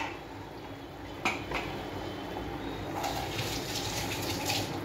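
Chicken and vegetables boiling in a pot of water on a gas burner: a steady bubbling hiss that grows louder about three seconds in, with two light clicks at about a second and a half.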